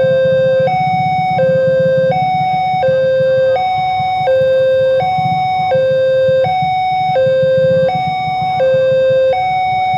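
Railway level-crossing alarm sounding a loud two-tone warning for an approaching train, switching between a lower and a higher pitch about every three-quarters of a second. A low rumble runs underneath.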